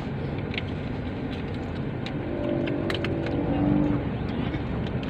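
Steady low vehicle rumble heard from inside a car's cabin, with an engine sound that swells and fades about two to four seconds in, and a few faint clicks.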